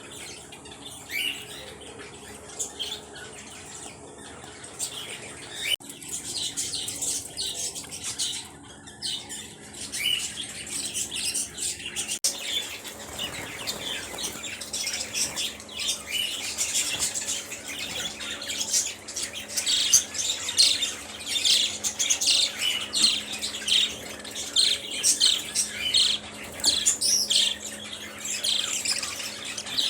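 A flock of small birds chirping and squawking continuously, the calls growing denser and louder about twelve seconds in, over a faint low steady hum.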